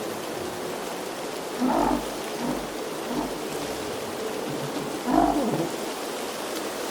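Wind ambience: a steady rush of noise, with two short, low, deep sounds standing out about two and five seconds in.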